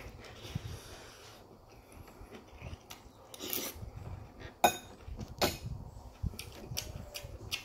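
Close-up chewing of a mouthful of budae jjigae (Korean army stew), with a short hiss and a couple of sharp wet clicks in the second half.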